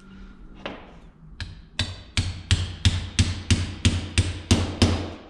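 Ball-peen hammer tapping a 12 mm quarter-inch-drive socket on an extension to drive valve seals onto the valve guides of an LS cylinder head: a couple of spaced taps, then a steady run of about three taps a second. The tone of the taps changes as each seal bottoms out on its guide.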